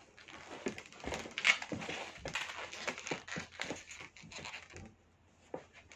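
Handling noise: close rustling and irregular knocks as the recording phone is moved, with latex balloons brushing near it. It dies down about five seconds in, leaving a few faint clicks.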